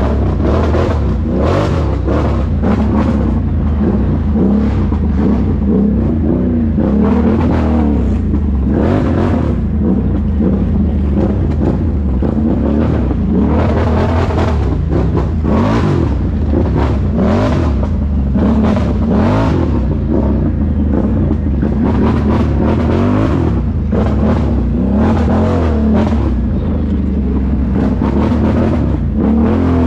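ATV engine running under changing throttle, its pitch rising and falling as the machine is ridden.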